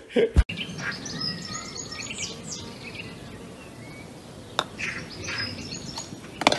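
Small birds chirping, with a short thump right at the start and a single sharp click about four and a half seconds in.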